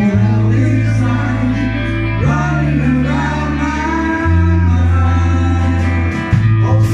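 A man singing live into a microphone over an amplified band, with a held bass note that changes every two seconds or so under the voice.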